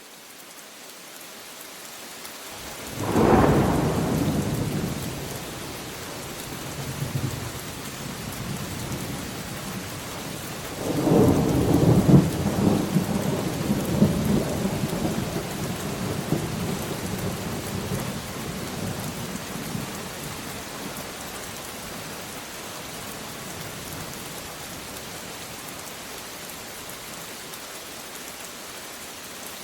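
Steady rain falling, fading in at the start, with two peals of thunder: a sharp clap about three seconds in, then a longer rolling rumble beginning around eleven seconds in and dying away over several seconds.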